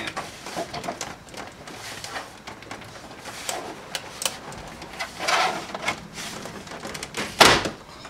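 Plastic dashboard trim panel being pried and tugged against its clips: rustling, scraping and small clicks, with a longer scrape about five seconds in and one sharp plastic knock near the end.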